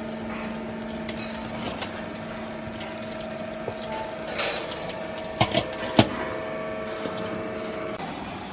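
Small hydraulic trash compactor baler running, a steady machine hum with held tones, the lower of which stops about halfway through. Three sharp knocks come about five to six seconds in.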